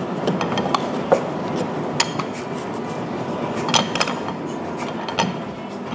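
Wooden rolling pin rolled back and forth over dough on a plastic cutting board: a steady rubbing, with a few light clicks and knocks scattered through it.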